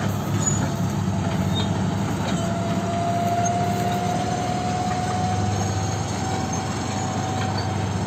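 Heavy diesel machinery running steadily with a low engine drone, and a faint whine that rises slightly in pitch through the middle.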